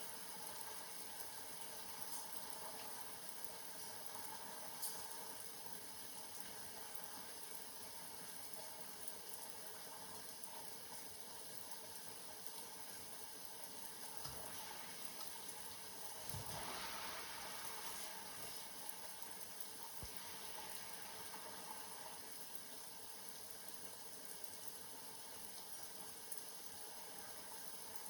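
Steady rain falling, an even hiss that swells slightly about two-thirds of the way through.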